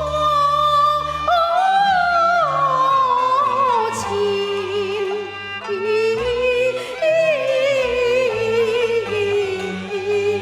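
Cantonese opera music: a melody line sliding and wavering in pitch over steady held low accompaniment notes, with a brief click about four seconds in.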